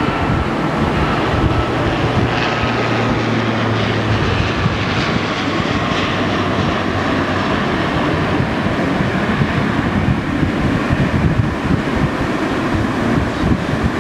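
Jet airliner engines running, a steady rush of noise with a faint high whine and a low hum that both fade out in the first few seconds.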